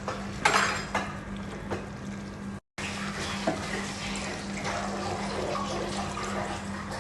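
Water running and splashing, as from a tap or pouring into a pot, over a steady low hum; the sound cuts out for an instant about two and a half seconds in.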